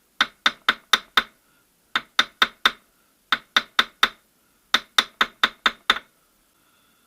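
Small hammer tapping the outer edge of a steel retaining ring on a VAZ 2108–2115 gearbox's output shaft to compress it into its seat. Quick metallic taps, about four a second, come in five bursts of four to six strikes separated by short pauses.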